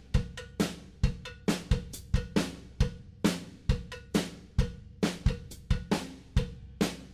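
Background music: a steady drum-kit beat of kick, snare and cymbal strikes.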